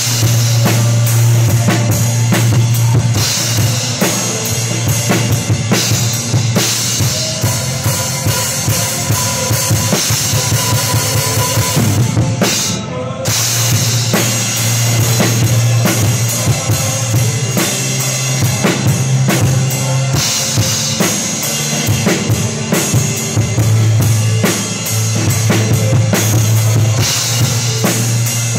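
Acoustic drum kit played live in a full band: a steady groove of bass drum, snare and cymbals over sustained low bass notes. About halfway through the cymbals drop out for a moment and the beat goes on.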